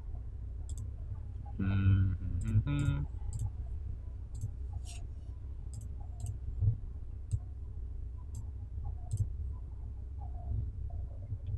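Computer mouse clicking: about a dozen sharp, short clicks at irregular intervals over a low steady hum.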